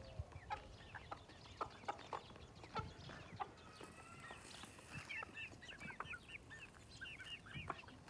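Aseel chickens clucking, with a run of many short quick calls through the second half. Wheat grain poured from a steel bowl onto a stone slab gives a brief rattling hiss about four seconds in.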